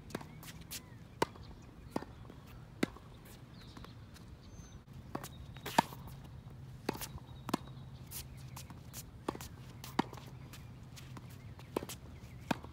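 Tennis rally on a wet hard court: sharp pops of racket strings striking the ball and the ball bouncing off the court, coming irregularly every half second to a second, the loudest about six and ten seconds in.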